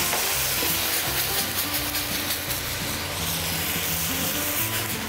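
White wine hissing and steaming as it hits a hot sauté pan of seared chicken and vegetables, a steady sizzle that deglazes the pan. Background music with held notes plays underneath.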